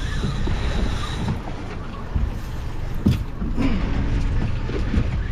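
Steady low rumble of a small fishing boat at sea, with wind on the microphone, and a couple of short knocks about two and three seconds in.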